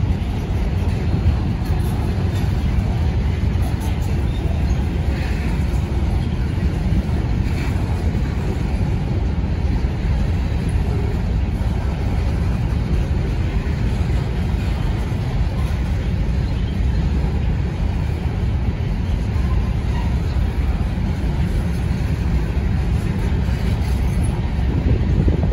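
Freight train cars rolling past: a steady, even rumble of steel wheels on the rails.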